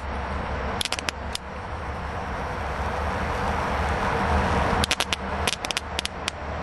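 Lighter being struck to relight a small hydrogen (HHO) torch flame at a MIG-tip nozzle: sharp clicks, a few about a second in and a quicker run of them around five to six seconds in, over a steady hiss and low hum.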